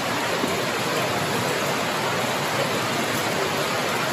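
Heavy hail and rain falling, a dense, steady hiss of countless small impacts with no break.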